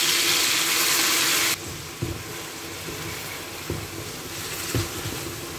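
Wet boiled wild fennel sizzling loudly as it lands in hot oil in a frying pan, cutting off suddenly about a second and a half in. After that there is a quieter sizzle with a few knocks of a wooden spoon stirring the pan.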